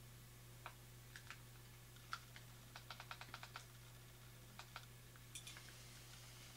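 Small plastic button clicks on a handheld P-SB7 spirit box radio as it is switched over to FM: scattered single clicks with a quick run of about eight in a row around the middle. A faint steady low hum sits underneath.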